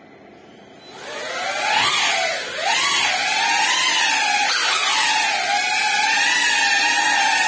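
Small GEPRC FPV drone's brushless motors and propellers spin up about a second in. They settle into a loud, high whine that wavers in pitch with the throttle as it flies.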